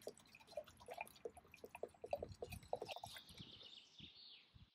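Walnut wood stain being poured from a plastic jerrycan into a spray gun's paint cup: faint small taps and clicks of the containers being handled, then a thin trickle of liquid near the end.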